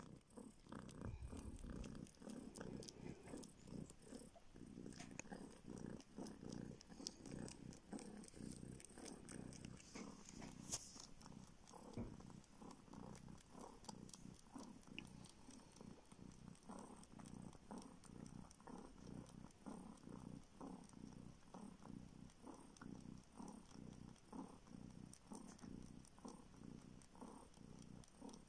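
A kitten purring faintly and steadily while suckling a finger as if nursing, with small sucking clicks over the purr.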